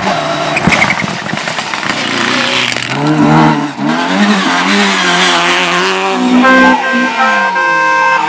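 Rally car engine revving hard, its pitch rising and falling repeatedly through gear changes and lifts, with tyre squeal over it. Near the end a steady chord of held tones comes in over the engine.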